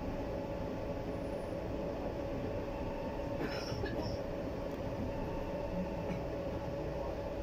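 Bogdan T90110 trolleybus running, heard from inside the cabin: a steady hum from the electric drive over road rumble, with a brief high squeal about three and a half seconds in.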